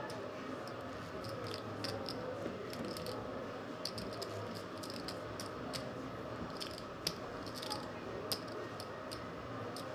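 Poker chips clicking as players riffle and stack them: a run of light, irregular clicks, a few sharper than the rest around seven and eight seconds in.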